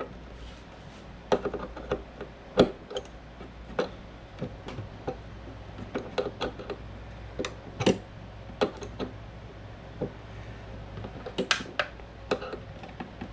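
A small metal wrench clicking and tapping on the collet nut of an RC boat's motor coupler as the collet is tightened: scattered sharp, irregular clicks, with a short lull about two thirds of the way in.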